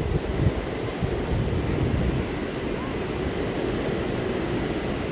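Ocean surf rushing onto the beach, with wind buffeting the microphone in gusts during the first two seconds, then a steady wash.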